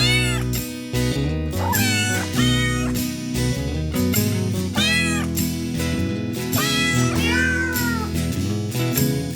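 A hairless cat meowing several times, each meow rising and falling in pitch, over background music with a steady beat.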